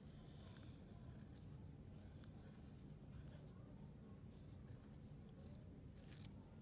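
Faint, irregular scratching of a pencil pressed along the lines of a drawing, tracing the outline through to graphite transfer paper underneath.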